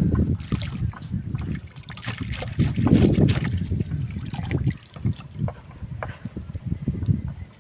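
Wind rumbling on the microphone over water sounds, with scattered small clicks and knocks; the rumble is heaviest at the start and about three seconds in, and eases off near the end.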